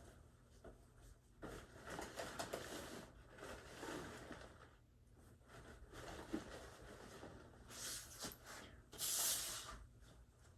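Rustling, scraping handling noises as parts of a Halloween animatronic prop are moved and fitted, with a short, louder tearing noise about nine seconds in.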